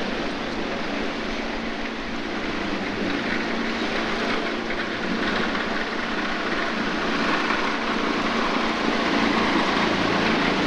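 A boat's engine running at a steady low hum under a haze of water noise, slowly growing louder.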